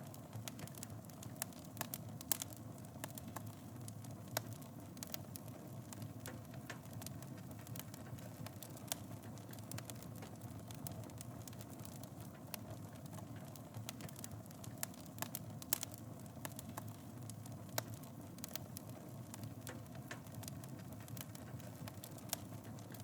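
Wood fire burning in a fireplace, with a steady low rumble and frequent sharp crackles and pops, a few louder snaps scattered through.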